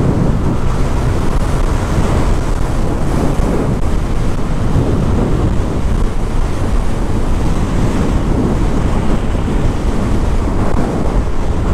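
Loud, steady wind rush buffeting the microphone of a rider on a moving Yamaha Mio Aerox scooter.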